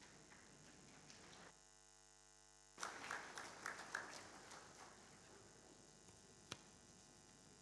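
Near silence in a lecture hall, with a brief, faint patter of noise about three seconds in and a single click near the end.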